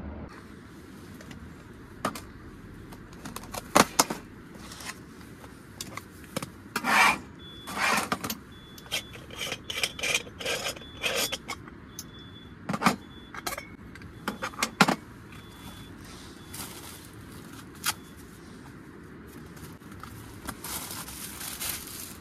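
Metal camping cups and a flask being handled: sharp clinks and knocks, with rubbing, scraping and the rustle of plastic bags and fabric, loudest in clusters through the first half.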